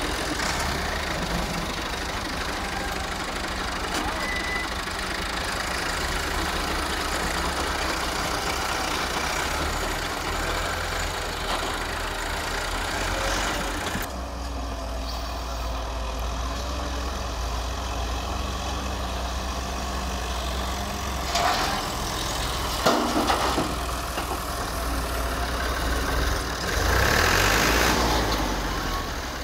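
Diesel engines running steadily: a Doosan DX140W wheeled excavator working as it digs and loads soil into a tractor trolley, with the tractor's engine idling close by. A couple of short knocks come about two-thirds through, and the sound grows louder for a moment near the end.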